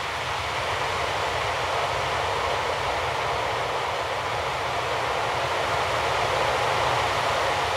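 A steady rushing noise, with no distinct tones, slowly swelling in level: the ambient noise texture that opens the recorded soundtrack for a contemporary dance piece.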